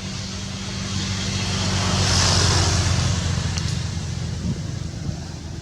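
A vehicle passing by: a swell of road noise that builds to a peak about two seconds in and then fades, over a steady low hum.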